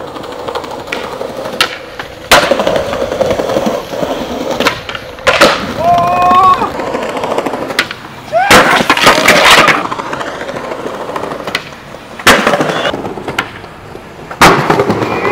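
Skateboard wheels rolling on concrete, broken by several sharp cracks of the board popping and slamming down on landings. The loudest hits come about eight and fourteen seconds in, as skaters ollie down a flight of stairs.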